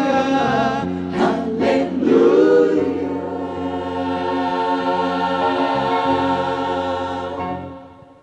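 Choir singing the close of a hymn, ending on one long held chord that fades away near the end.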